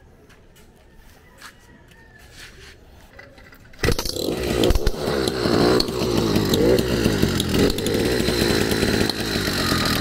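80cc two-stroke motorized-bicycle engine starting suddenly about four seconds in after a few faint clicks, then running steadily at idle.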